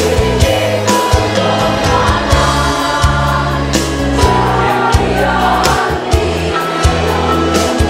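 Women's choir singing a march in unison and harmony, accompanied by music with a steady beat and a low bass line.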